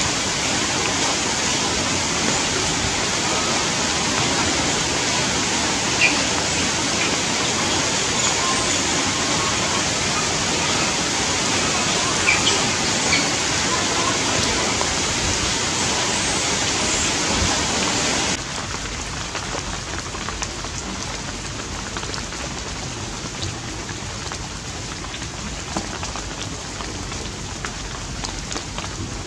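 Steady rain falling, an even dense hiss that drops suddenly to a quieter level about eighteen seconds in.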